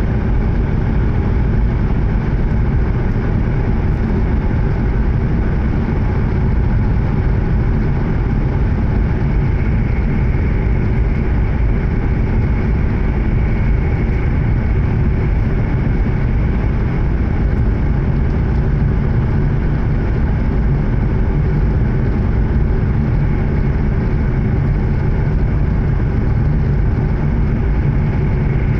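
E7 series Shinkansen running between stations, heard from inside a passenger car: a steady, loud rumble of wheels, running gear and air, with a faint high whine.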